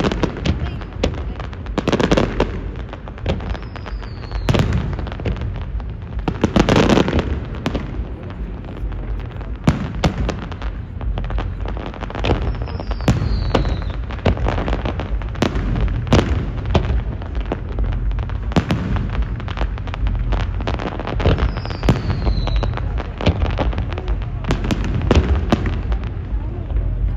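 Aerial fireworks show: a dense run of sharp bangs and crackles, with several heavy booms in the first few seconds. A short falling whistle sounds three times.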